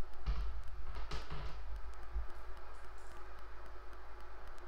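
Small plastic Lego pieces being handled and pressed together: two short rustles in the first second and a half, then faint scattered clicks, over a low steady hum.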